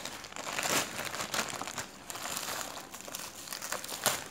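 Plastic courier mailer bag and bubble wrap crinkling and rustling as hands pull a wrapped item out of a torn-open package. There are louder rustles under a second in and again near the end.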